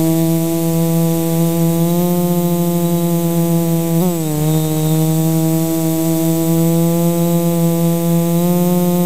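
Quadcopter's electric motors and propellers running in flight, a steady buzzing hum with a dip in pitch about four seconds in as the throttle changes, then settling back.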